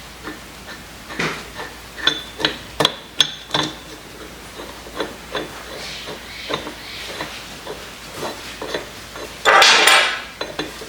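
Scattered metal clinks, taps and knocks as the steel parts of a Kurt machine vise and hand tools are handled on the bench. Near the end comes a louder rush of noise about a second long.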